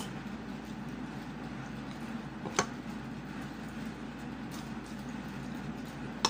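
A metal spoon clicking against a plate twice, once about two and a half seconds in and once at the end, over a steady low room hum.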